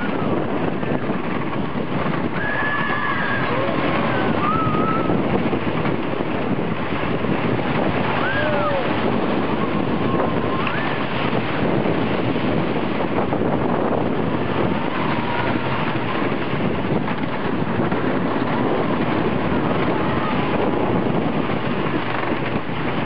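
Wind rushing over the microphone and the steady rumble of a Lightning Racer train running on its wooden coaster track. Riders' shouts break through a few times.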